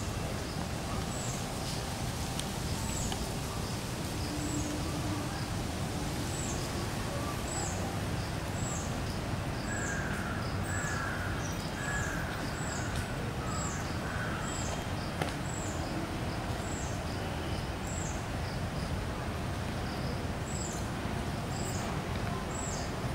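Outdoor garden ambience: a bird repeats a short, high chirp roughly once a second, with a few lower chirps from other birds about halfway through, over a steady low background hiss.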